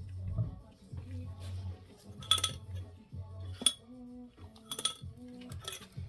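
Sharp metallic clinks, four of them about a second apart, each with a short ring, from metal fork parts and tools knocking together as a scooter front fork is being reassembled.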